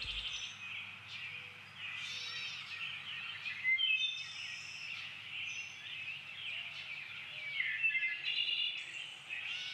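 Wild songbirds chirping and singing in woodland: scattered short calls and quick rising and falling notes throughout, over a faint steady outdoor hum.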